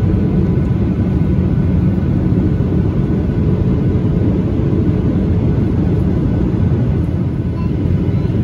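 Steady engine and airflow noise inside a Boeing 737-800's passenger cabin: a deep, even rumble at a constant level with a faint steady hum above it.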